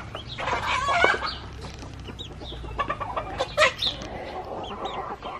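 Newly hatched chicks peeping in short, high chirps around a brooding turkey hen, with a louder, lower call about a second in.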